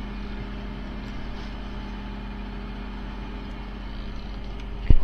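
Fishing boat's engine running with a steady low hum. A sharp knock near the end.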